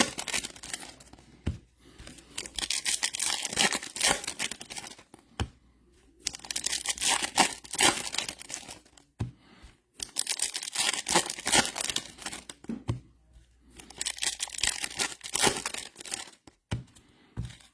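Plastic-foil trading card pack wrappers being torn open and crinkled, in four or five crackling bursts of a few seconds each with short pauses between.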